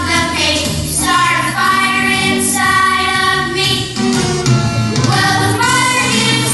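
Christian pop song playing, with voices singing long held notes over steady backing music.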